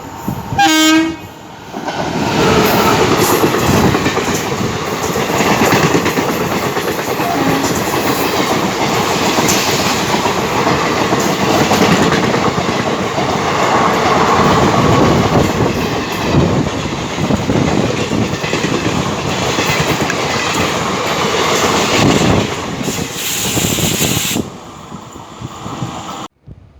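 An electric locomotive gives a short horn blast about a second in. Then an express train passes at speed for about twenty seconds, its wheels clattering over the rail joints. The sound cuts off abruptly near the end.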